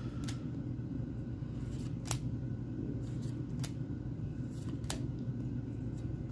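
Pokémon trading cards being flipped through by hand, each card slid off the stack with a short sharp snap, about five times, every second and a half or so, over a steady low hum.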